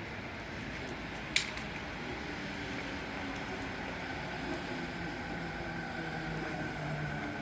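Steady running noise of a Musashino Line electric train, with low humming tones that grow stronger toward the end. A single sharp click sounds about a second and a half in.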